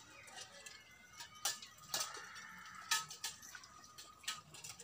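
A few sharp, short clicks or taps at uneven intervals about a second apart, over faint background.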